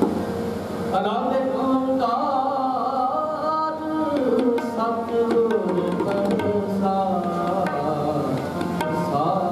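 Kirtan: a voice singing a devotional hymn to tabla accompaniment.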